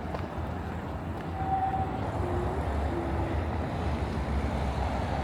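City street ambience: a steady low rumble of road traffic, with a few brief faint tones about one and a half to three seconds in.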